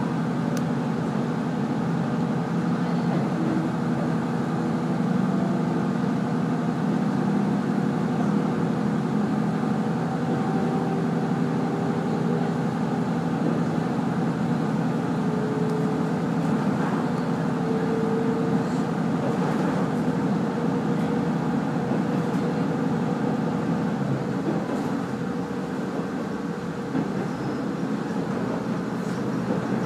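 Running noise of a diesel railcar heard from inside the carriage: a steady engine drone with a few tones that slowly shift in pitch, over rumbling wheel and rail noise.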